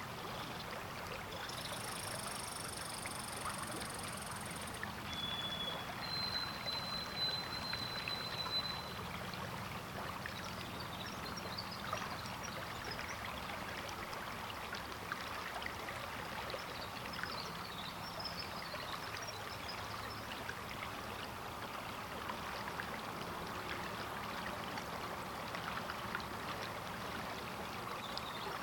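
River water flowing steadily: an even rush with small splashes and trickles through it. A few thin high whistles sound during the first several seconds.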